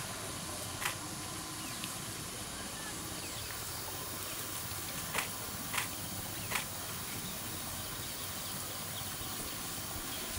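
Steady outdoor background hiss with four short, sharp clicks or snaps: one about a second in and three between five and seven seconds.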